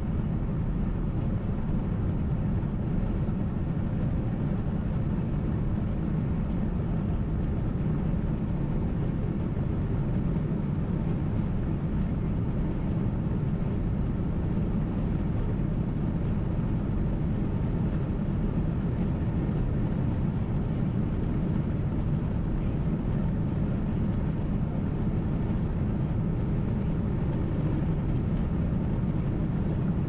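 Steady low rumble of a car driving at road speed, heard from inside the cabin: tyre and engine noise.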